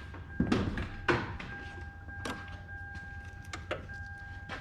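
Clicks and knocks from someone moving about a car before starting it, with a faint steady electronic tone, like a warning chime, coming on about a second in.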